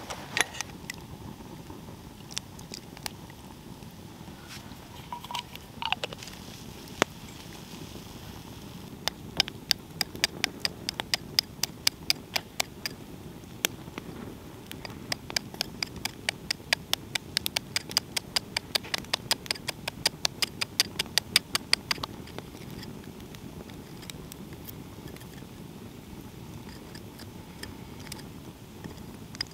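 Knife tip tapping and picking at a brown eggshell to bore a small pressure-relief hole in its top: a quick run of sharp ticks, about four a second, lasting some thirteen seconds from about nine seconds in.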